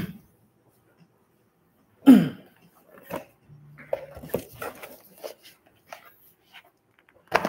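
A short call falling in pitch about two seconds in, then a run of small clicks and knocks as cardboard product boxes are picked up and handled, with a sharp click near the end.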